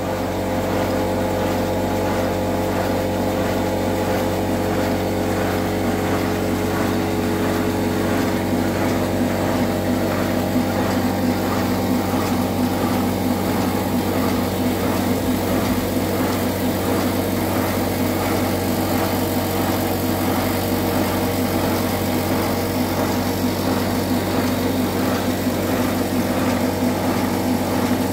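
Chassis of a 7¼-inch gauge model steam locomotive running on compressed air: its cylinders, valve gear and driving wheels working steadily, with a continuous hum and a regular beat of exhausting air.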